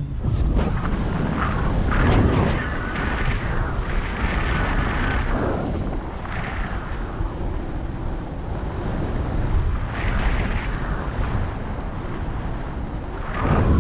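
Wind noise from the airflow of a paraglider in flight buffeting the microphone, heavy in the low end, swelling and easing every few seconds.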